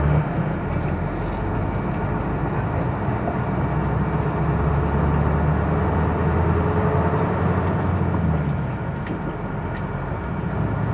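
Tour coach driving along, heard from inside the cabin: a steady low engine hum under a continuous rush of road noise.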